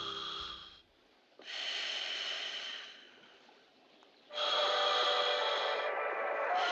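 Three loud, rushing breaths close to the microphone, each starting abruptly, with short quiet gaps between them; the last is the longest.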